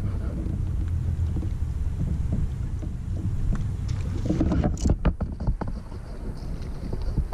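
Wind rumbling low and steady on the microphone, with water against a kayak. Between about four and five and a half seconds in comes a run of sharp knocks and clicks from gear being handled on the kayak.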